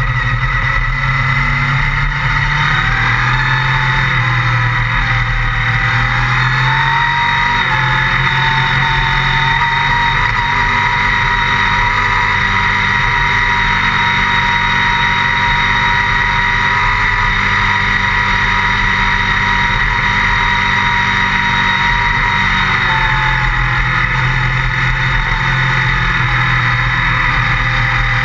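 Kawasaki Versys 650's parallel-twin engine running under way off road. The revs climb a few seconds in, hold steady through the middle, and ease back near the end.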